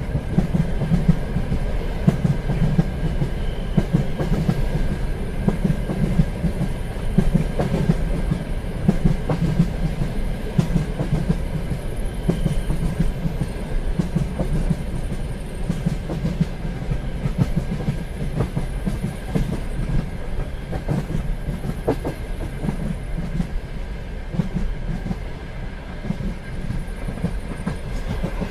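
Continuous low rumble thick with rapid, irregular rattling, like a rail carriage in motion, with a faint steady high tone above it.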